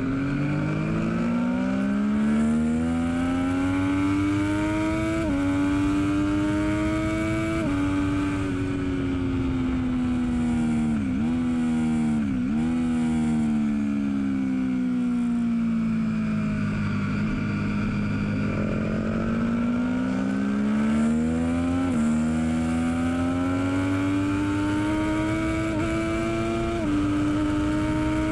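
A 2012 Triumph Daytona 675R's inline three-cylinder engine at race-track speed. The revs climb and drop sharply with each upshift, three times in the first eight seconds. The note then falls away for several seconds as the bike slows, then climbs again, with two more upshifts near the end.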